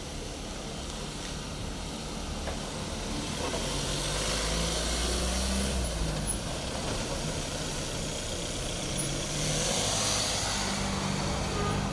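A van's engine running close by, with a steady low rumble that swells about four to six seconds in and again near the end.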